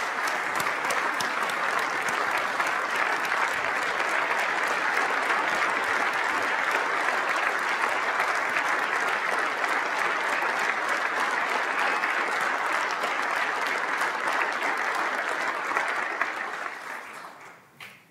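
Applause from a large chamber full of legislators, steady and sustained, dying away near the end.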